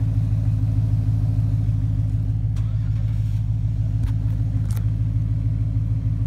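An off-road 4x4's engine idling steadily, a low even hum. A few faint clicks come through about halfway in.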